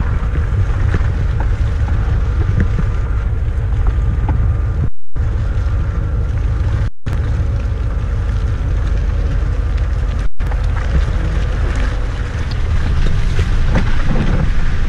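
Off-road 4x4 driving along a rutted muddy grass track: a steady low rumble of engine and tyres, with wind buffeting the microphone.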